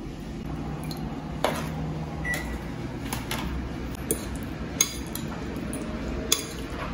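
A metal fork clinking and scraping against a ceramic plate and a small glass dish while raw diced chicken is mixed: several sharp, separate clinks, the loudest about a second and a half in, over a steady low background hum.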